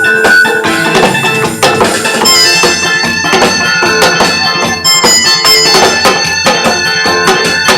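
Instrumental break of a song's backing track: a steady drum beat under a melody line, with no singing.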